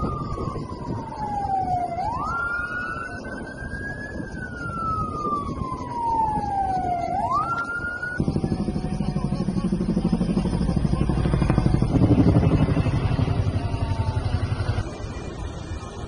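Emergency-vehicle siren wailing: a tone sliding slowly down and then snapping quickly back up, twice. About eight seconds in it cuts off and gives way to a loud low rumble with a fast, steady throb that fades near the end.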